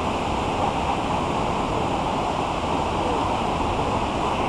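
Water pouring over a low-head river dam's spillway: a steady, unbroken rush of falling water.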